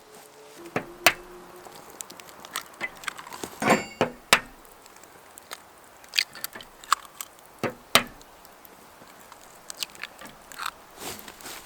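Irregular sharp snaps, clicks and knocks of small sticks being handled and fed into the bottom of a Firebox wood-burning stove, with a few louder cracks among lighter ticks.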